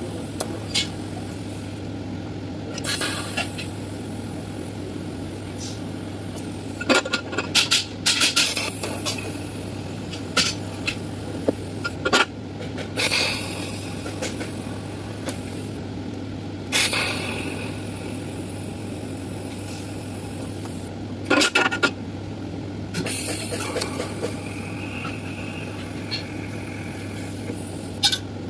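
Steady hum from a TIG welding setup on 308L stainless steel, with scattered sharp metallic clinks and taps in clusters every few seconds.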